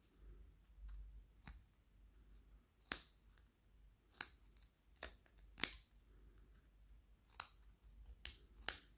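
Small spring-loaded scissors of a Leatherman Squirt PS4 multitool snipping, about eight sharp separate cuts at an irregular pace.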